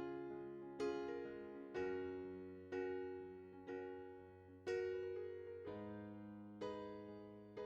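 Background music: soft electric piano chords, one struck about every second and left to fade.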